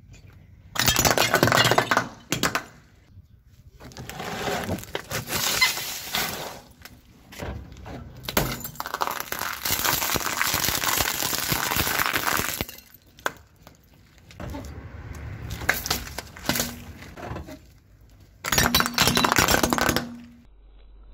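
Brittle objects crushed under a car tyre: cracking, crunching and shattering in about five separate bursts. The longest is a run of crackling about ten seconds in, as a plastic pipe is rolled over and split.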